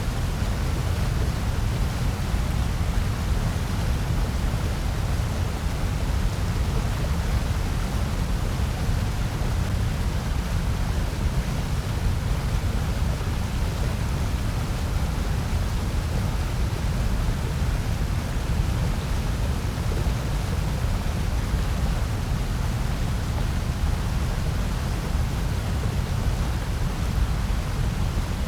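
Steady synthetic noise, labelled white noise: an even, unchanging hiss with a stronger deep rumble underneath.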